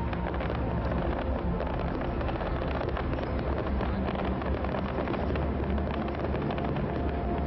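Fireworks crackling and popping, many small reports in quick succession, over a steady low rumble aboard the passenger ship.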